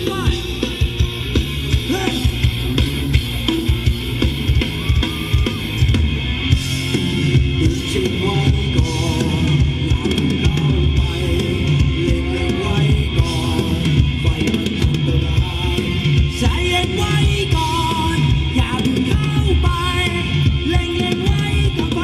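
Loud Thai ramwong dance music played live by a band through a PA, with a steady drum beat.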